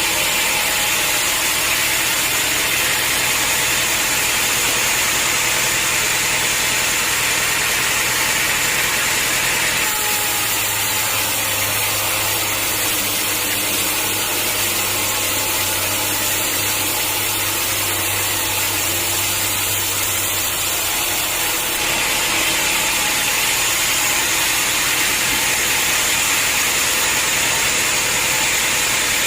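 Sawmill running steadily, its saw cutting through a hard acacia log over a constant engine drone. The sound changes character about ten seconds in, then changes back about twenty seconds later.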